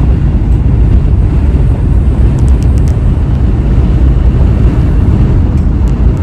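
A vehicle driving off-road, heard as a loud, steady low rumble with wind buffeting the microphone.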